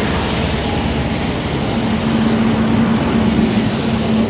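TVS XPulse 200 motorcycle on the move: a steady rush of wind and road noise over the microphone, with a steady engine drone that comes in about two seconds in.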